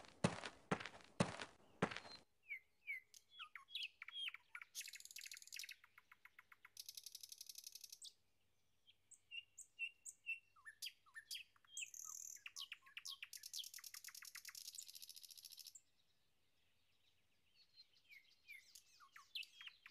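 Faint songbirds chirping and trilling: repeated short falling chirps and buzzy trills, with a pause before a few chirps return near the end. A quick run of clicks fills the first two seconds.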